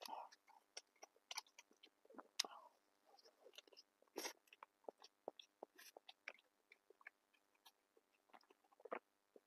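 Close-up mouth sounds of a person chewing food: irregular wet smacks and sharp clicks.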